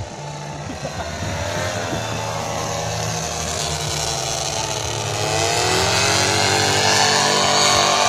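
Paramotor engine and propeller running in flight; the engine pitch sags then climbs again about five seconds in, growing louder toward the end.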